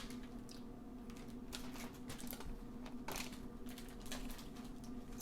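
Comic books in plastic bags with backing boards being handled and shuffled: soft, irregular clicks and crinkles of plastic and card, over a steady low hum.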